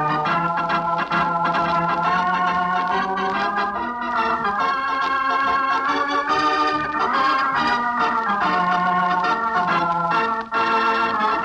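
Organ playing a music cue of sustained chords that shift every second or two, with a short break near the end before a final held chord.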